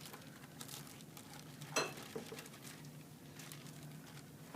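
Ground beef frying in a pan with a faint, steady sizzle, broken by light scattered clicks and one sharper knock just under two seconds in.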